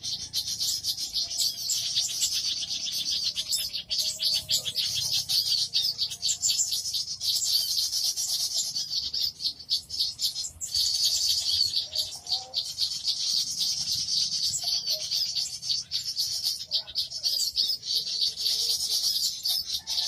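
Bird-lure recording of many small birds calling together: a dense, continuous mass of high-pitched chirps and rapid trills, with a few fainter, lower notes scattered through it.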